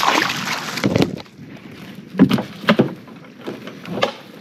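A short rush of noise at the start, then a few sharp knocks and clunks spaced about half a second to a second apart.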